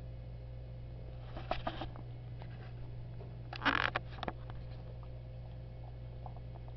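A dog chewing a sticky caramel with wet, clicking mouth and lip smacks in two short bursts, about a second and a half in and again around three and a half seconds in, over a steady low hum.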